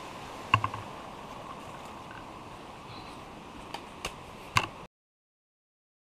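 Faint steady hiss with a few sharp, irregular ticks and clicks: two close together about half a second in, then three more near the end, the last the loudest. The sound cuts off to silence just before the end.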